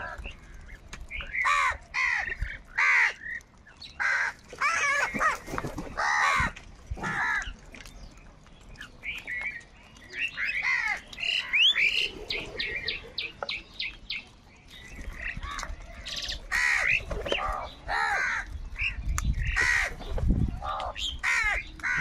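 A flock of house crows cawing over and over, harsh calls coming one after another and overlapping. Around the middle comes a quick run of short, even ticking notes.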